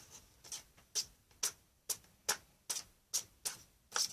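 Foamboard revolving door model turning by hand, giving regular sharp ticks about two a second as its wings go round.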